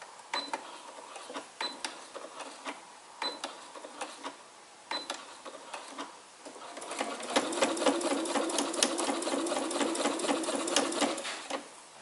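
Sewing machine starting a seam: a few slow single stitches, each a separate click about a second apart, then from about halfway it runs steadily at speed for about five seconds, a rapid even clatter of stitches over a motor hum, and stops near the end.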